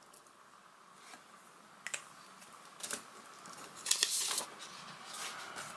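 A sheet of paper being handled: a few soft ticks, then a louder brief rustle of paper about four seconds in, and a fainter one after it.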